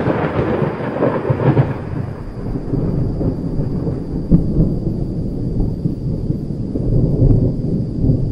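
Thunder: a loud crash that dies away over the first two seconds into a long low rumble, with a sharp clap about four seconds in and the rumble swelling again near the end.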